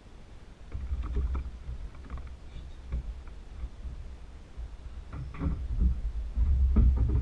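Dull knocks and bumps of a fish measuring board being handled against a fishing kayak, over a low rumble. The knocks come more often in the second half.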